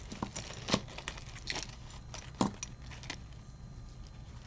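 Costume jewelry being handled and sorted: beads, chains and small metal pieces clicking and clinking against each other in several separate light taps.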